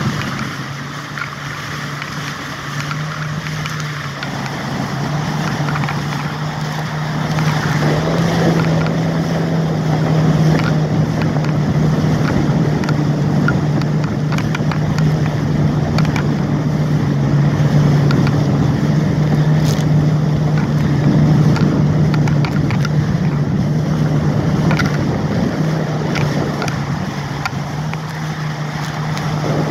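Jet ski engine running steadily at speed over the rush of water spray and wind on the microphone. It grows louder and slightly higher in pitch a few seconds in, and eases a little near the end.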